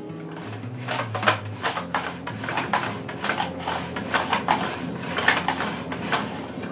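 An onion being sliced on an OXO V-blade mandoline, pushed back and forth across the blade in its safety-guard food holder: a short scraping cut with each pass, about two to three passes a second.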